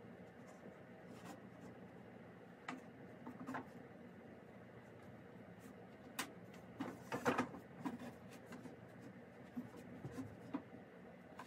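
Scattered light knocks and clicks as a wooden board and a drill are handled on top of a drum, with a short cluster of knocks about seven seconds in. A faint low hum runs underneath.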